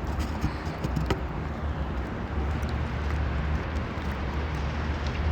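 City street ambience: a steady low rumble of road traffic with a few faint clicks.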